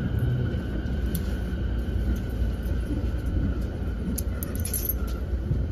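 Running sound of a 209 series 500-subseries electric train heard from inside the car: a steady low rumble of wheels on the rails with a faint steady whine, and a few light ticks about four to five seconds in.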